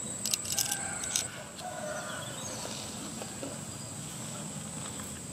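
Steady high-pitched insect drone, typical of crickets, with a few sharp clicks of a metal ice-cream scoop against glass bowls in the first second or so.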